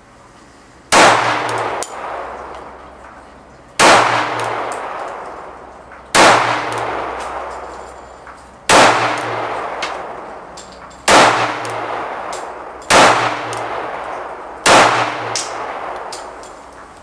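Kel-Tec PF9 subcompact 9mm pistol fired seven times at an unhurried pace, about two to three seconds apart. Each shot is followed by a long, fading echo.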